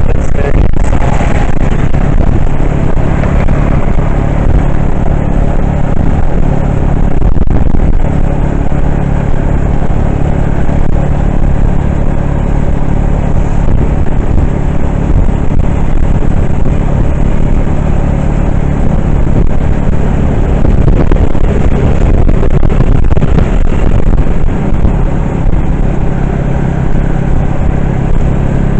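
Steady engine hum and road noise of a moving vehicle, heard from on board.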